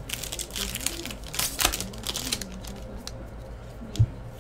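Hands flipping through a pack of 2015-16 Upper Deck SPx hockey cards: a quick run of crisp card clicks and slides that thins out after about two and a half seconds. A sharp thump near the end.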